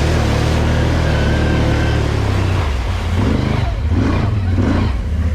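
Electric dirt bike riding along a muddy trail, with a steady rumble and the sound swelling up and down several times from about three seconds in as the throttle is worked.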